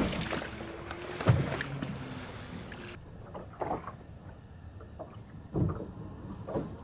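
Open-water ambience on a bass boat: wind and water noise around the hull, with a few scattered knocks and thumps.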